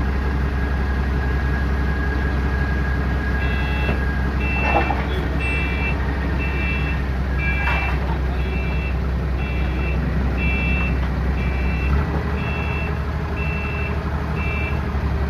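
Steady low drone of an 18-inch rubber hot mill running, with a high-pitched electronic beep repeating about twice a second that starts a few seconds in and stops near the end. Two brief knocks sound in the first half.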